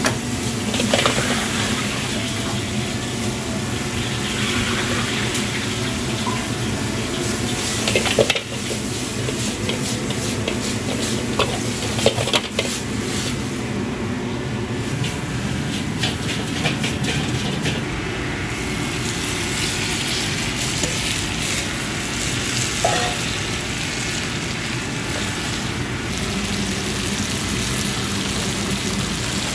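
Steady rushing noise of a commercial wok station: the high-pressure gas wok burner running and food sizzling in the wok, with a few sharp clanks of the metal ladle against the wok about 8, 12 and 23 seconds in.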